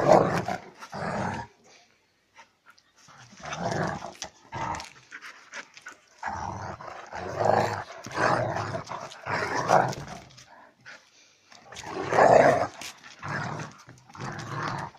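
A German Shepherd and a tan dog growling at each other in rough play, in repeated bursts of a second or two with brief pauses between.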